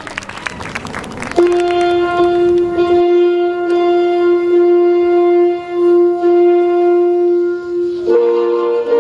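Applause dies away as music begins: one long held note, then several notes sounding together about eight seconds in.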